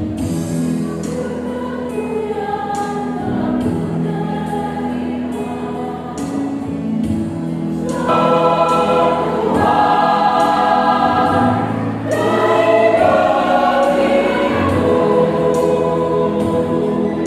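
Church choir singing a sacred song in several parts, the full chords swelling louder about eight seconds in.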